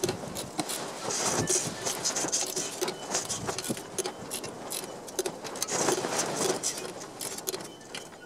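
Ratchet wrench clicking as the cylinder head bolts of a Briggs & Stratton engine are torqued down, in short bursts of rapid metallic clicks with pauses between strokes.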